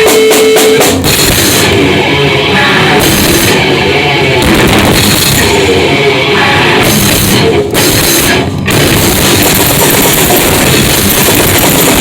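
Loud heavy rock played by a band at practice: a pounding drum kit with bass drum under distorted guitar. There are two brief breaks in the playing about eight seconds in.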